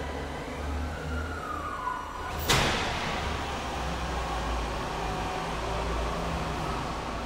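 Jungheinrich ETV 214 electric reach truck operating: a motor whine that rises and then falls in pitch, then a sharp clunk about two and a half seconds in, over a steady low hum.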